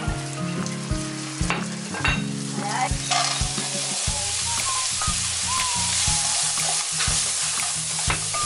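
Sliced sausage and then mixed vegetables sizzling in oil in a nonstick frying pan, stirred with a wooden spatula that scrapes and taps the pan. The sizzle grows stronger about three seconds in.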